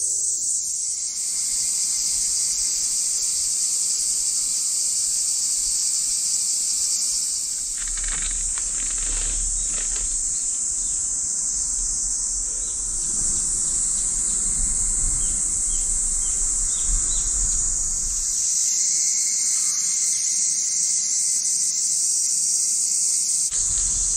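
Cicadas droning in a dense, steady, high-pitched chorus from the surrounding trees. Through the middle stretch a low rumble runs under it.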